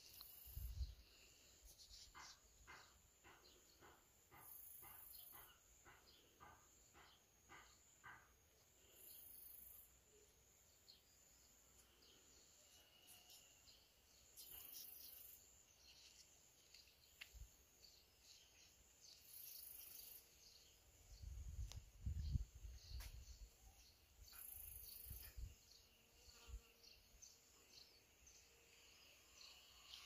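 Faint outdoor ambience with insects calling: a high buzz about a second long that repeats every five seconds, and a run of short chirps at about two a second near the start. A few low rumbles on the microphone come past the middle.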